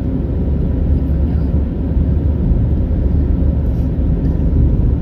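Steady low rumble of engine and road noise heard inside a moving vehicle's cabin.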